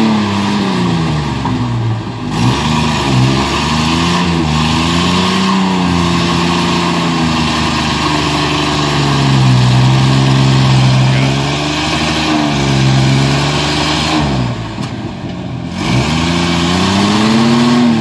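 Ford Ranger pickup's engine revving up and down repeatedly while the truck churns through a mud hole, its tyres spinning in the mud. The revs drop off briefly twice, about two seconds in and again near the end.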